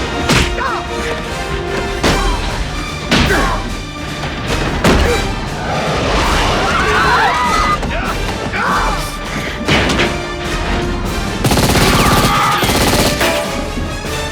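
Action-film soundtrack: dramatic orchestral score under a series of sudden heavy crashes and booms, a few seconds apart, with a long, dense run of crashing near the end.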